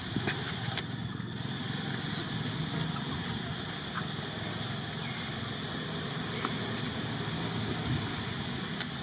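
Steady outdoor background noise: a low rumble with a steady high hiss over it, and a few faint clicks.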